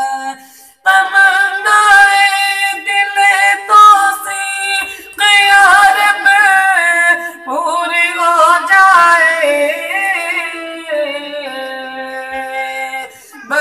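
A young man singing a naat (Urdu devotional poem) unaccompanied into a handheld karaoke microphone, drawing out long, ornamented, wavering notes. There is a brief breath pause just under a second in.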